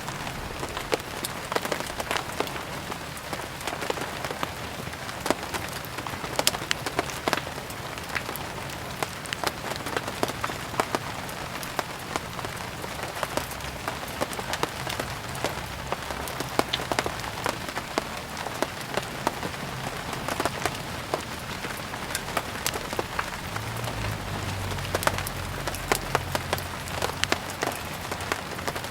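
Steady rain falling, mixed with the dense crackling and popping of burning firewood. A brief low rumble comes in near the end.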